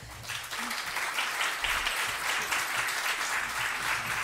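Audience applauding, swelling over the first second into steady clapping.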